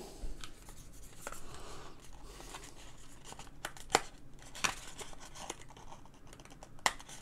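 Hands folding and flexing a black cardboard sleeve that holds a user guide: light rubbing and scraping of card, with a handful of sharp papery clicks and snaps scattered through.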